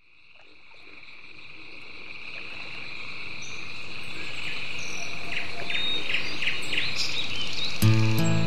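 Steady, high-pitched insect drone, fading in from silence and growing louder, with a few short bird chirps about five to seven seconds in. Acoustic guitar music comes in near the end.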